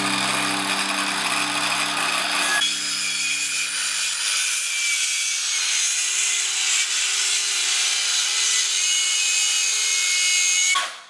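Handheld circular saw running steadily with a high whine as it cuts along the end of a pressure-treated 4x4 post, trimming a 45-degree chamfer that had gone off. It stops sharply near the end.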